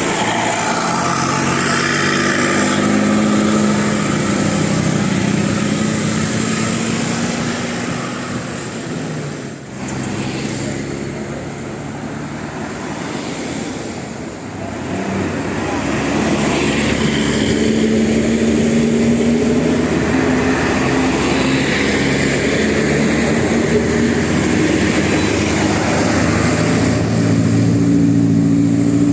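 Large bus engine pulling under heavy load, its pitch rising slowly as it climbs; the sound drops sharply about ten seconds in, then builds and rises again.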